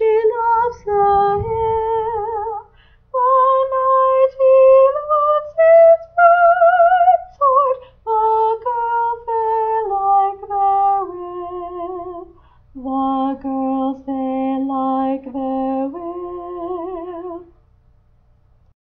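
A woman singing one part of a round unaccompanied: a single melodic line, held notes with vibrato and short breaths between phrases. She stops about a second and a half before the end.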